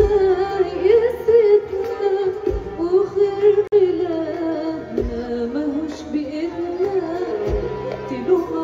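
Live concert music: a woman singing a wavering, ornamented melody over an orchestra, with steady bass notes and a low drum beat about every two and a half seconds.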